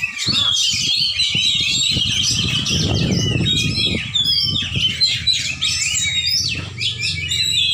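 Caged oriental magpie-robins (kacer) singing and chattering over one another: a dense, unbroken stream of quick whistles, trills and squawks. A low rumble swells underneath about three seconds in.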